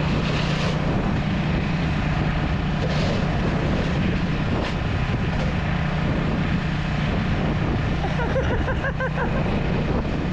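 Cub Cadet 2X 30-inch two-stage snow blower's fuel-injected engine running steadily under load.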